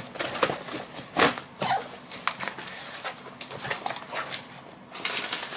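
A cardboard parcel being torn open by hand, with irregular ripping, crackling and rustling of tape and cardboard.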